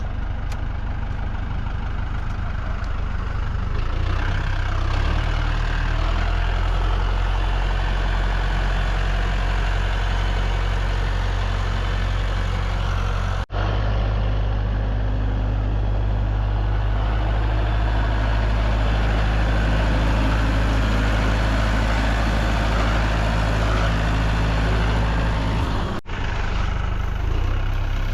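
A heavy vehicle engine running steadily, picking up revs about four seconds in. It cuts out for an instant twice.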